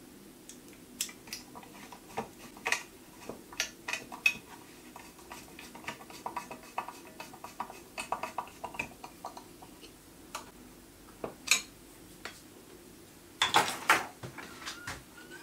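Small sharp metal clicks and taps of a screwdriver engaging and turning a small screw in a steel bracket on the lathe bed. Near the end comes a short, louder clatter as the screwdriver is set down among tools on the bench.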